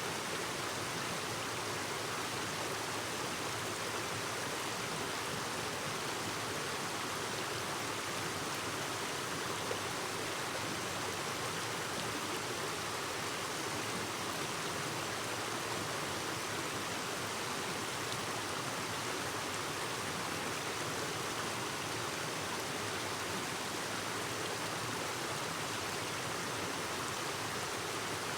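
Clear mountain stream babbling steadily, an even rush of running water.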